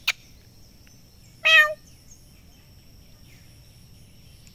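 One short, high animal call about a second and a half in, over a faint steady high-pitched whine and outdoor background noise.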